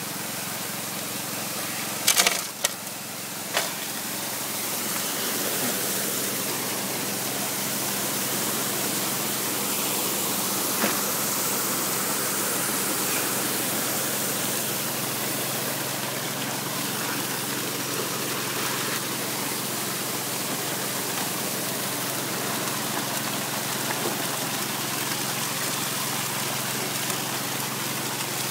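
Muddy water gushing steadily through a high banker's hopper and sluice, over a steady hum from the Honda water pump's engine that feeds it. A few sharp knocks come about two to three and a half seconds in.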